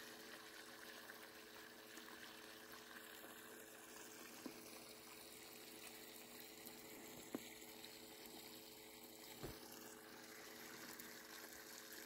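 Faint steady running water in a flooded, ice-jammed ditch, with a low steady hum under it and three light clicks.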